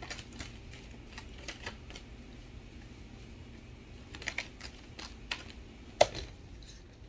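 Oracle cards being shuffled and handled: scattered light clicks and rustles, with a sharper snap about six seconds in.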